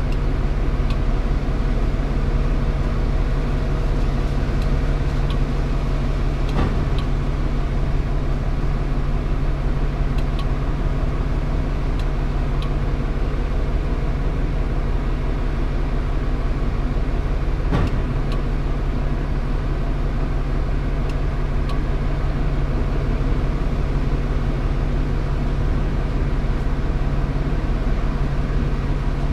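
Scania R410 concrete truck's diesel engine running steadily with a constant low hum, and two brief knocks in the middle.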